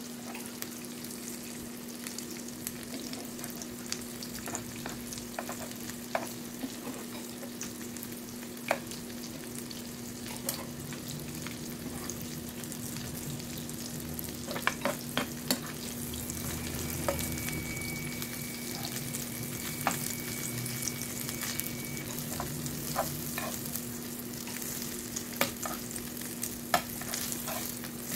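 Slices of canned meat loaf and stuffed bell pepper rings sizzling in oil in a frying pan, with frequent sharp pops and clicks from spitting oil and the spatula against the pan. A steady low hum runs underneath.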